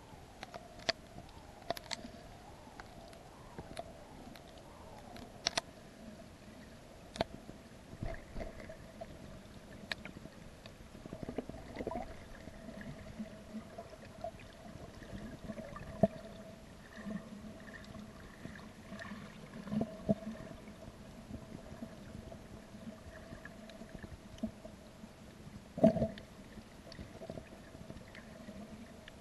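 Underwater sound picked up by a submerged camera: a steady hum under muffled water noise, broken by scattered sharp clicks and knocks, the loudest of them near the middle and near the end.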